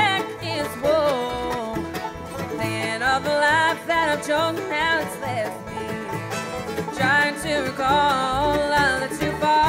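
Live bluegrass band playing an up-tempo number, with banjo, fiddle, mandolin, acoustic guitars and upright bass.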